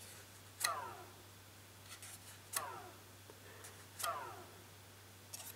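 Drone propellers on T-Motor MN2214 brushless motors flicked by hand three times: each flick is a sharp click followed by a short falling whir as the prop and motor coast down. The motors are being hand-spun to check for bearing friction and notchiness.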